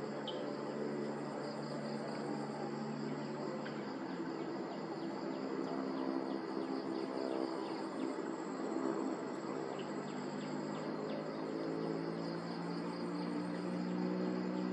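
Steady high-pitched chirring of insects, over a low drone of held tones that changes pitch about four seconds in and again near the end.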